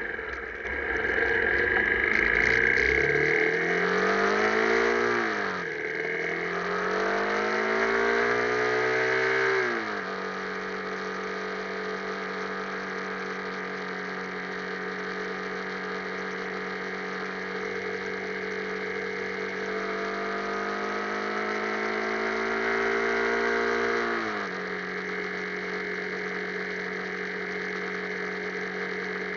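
Honda Tornado 250 single-cylinder four-stroke motorcycle engine revving: the pitch climbs and falls off sharply twice, then it runs at a steady low speed, climbs slowly once more and drops back to steady running.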